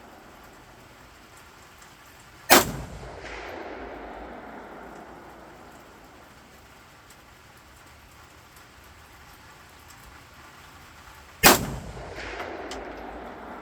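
Two single rifle shots from an AKM-pattern rifle firing 7.62×39 mm rounds, about nine seconds apart. Each is a sharp crack followed by a fading echo.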